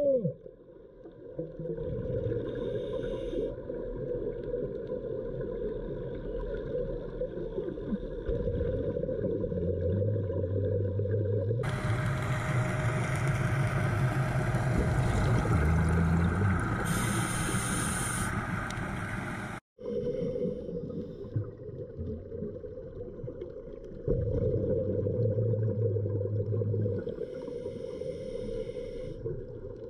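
Muffled underwater ambience recorded on a dive: a steady low rumble with a hum that swells in and out. From about twelve seconds in, a louder hissing, bubbling rush covers it for about eight seconds, then cuts off abruptly.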